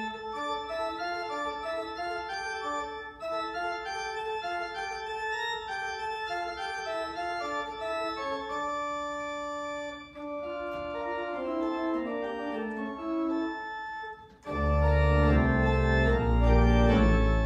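Two-manual church organ played by a young student: several voices moving over held notes on the manuals. About fourteen seconds in there is a short break, then a louder passage with deep pedal bass.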